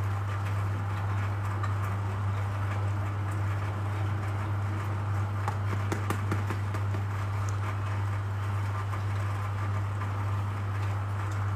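A steady low hum over a light background hiss, with a few faint clicks about six seconds in.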